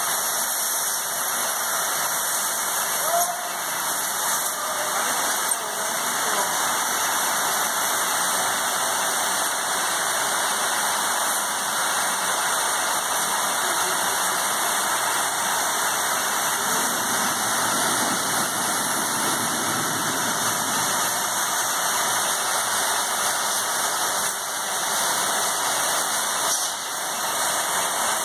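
Air casters lifting and floating a large boat on compressed air, giving a steady loud hiss of escaping air that runs on without a break.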